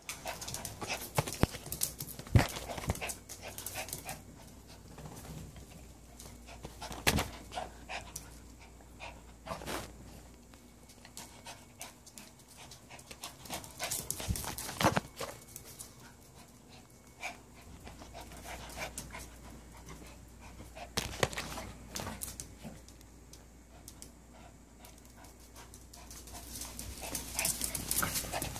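A poodle and a Yorkshire terrier panting excitedly as they greet their owner, with scattered sharp knocks and rustling close to the microphone.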